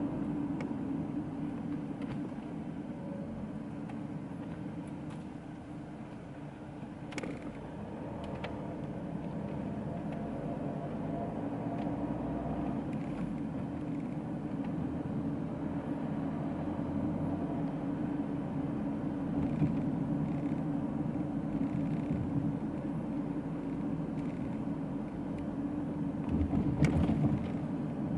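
Cabin noise of a 2011 Opel Insignia's 2.0 CDTI four-cylinder turbodiesel under way: a steady engine drone with tyre and road noise. A few short knocks sound through it, the loudest near the end.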